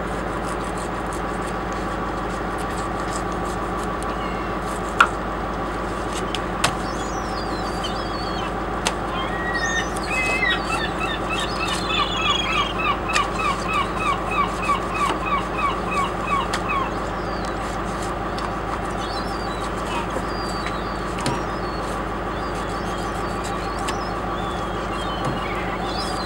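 A steady mechanical hum, like an engine running, under a bird calling a rapid series of short falling notes for several seconds in the middle, with a couple of sharp knocks.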